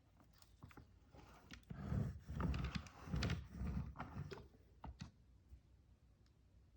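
Handling noise from the parts of a cordless stick vacuum: scattered clicks, then a cluster of knocks and dull thuds about two to four and a half seconds in, as pieces are picked up and set down.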